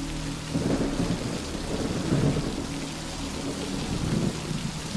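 Steady heavy rain with a low rolling rumble of thunder swelling and fading through the middle.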